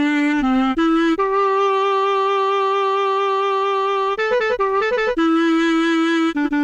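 Sampled reed woodwind instrument from a soundfont playing a single melody line: long held notes, with a quick run of short notes about four seconds in.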